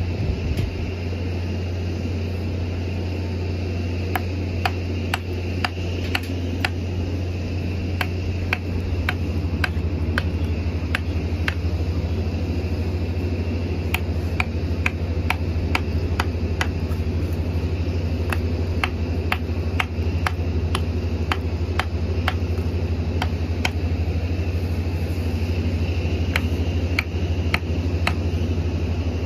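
A heavy machine's diesel engine idling with a steady deep hum, its note deepening a little about nine seconds in. Over it come many light, sharp metallic taps and clicks at irregular spacing, sometimes several a second, from hand-tool and hammer work on the steel of a crane hoist-drum hydraulic unit.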